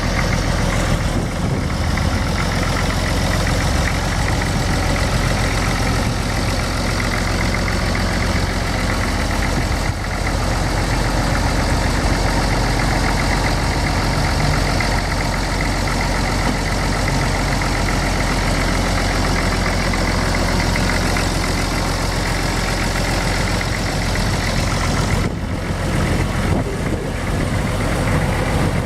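Case 1030 tractor's six-cylinder diesel engine running steadily at idle.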